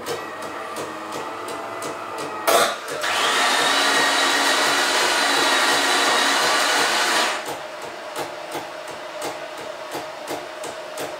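DeLonghi Magnifica ESAM 4500 bean-to-cup coffee machine working through an automatic cappuccino cycle. A steady hum with a thin whine gives way, after a knock about two and a half seconds in, to a much louder steady whirring run that stops abruptly after about four seconds. An even, rapid pulsing follows.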